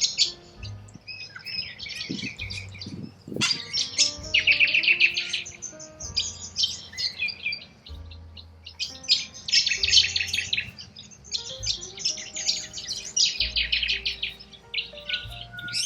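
Corella cockatoos calling in harsh, rapid chattering runs with short breaks between, over soft background music of held notes.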